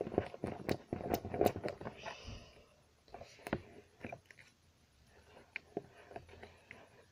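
Small clicks, taps and scrapes from handling slime-making supplies on a table, dense for the first two seconds and then sparse and fainter.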